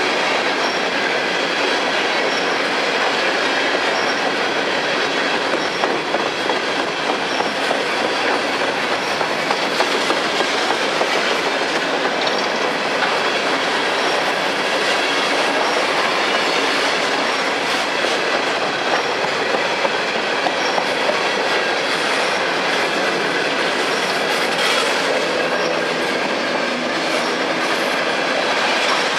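Freight train cars rolling steadily past, wheels clattering over the rail joints, with a faint squeal from the wheels against the rails.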